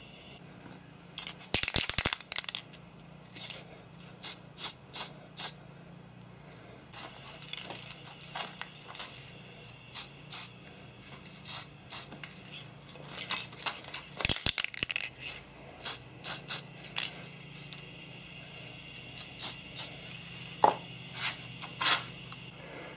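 Small Krylon Short Cuts aerosol can of black paint sprayed in many brief bursts, short sharp hisses and clicks coming every half second or so, with a denser cluster about two seconds in and a loud one about fourteen seconds in.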